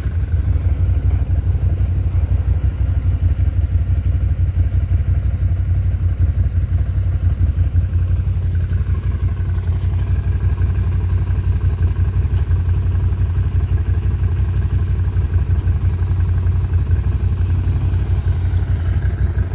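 ATV engine idling steadily: an even low rumble with no revving.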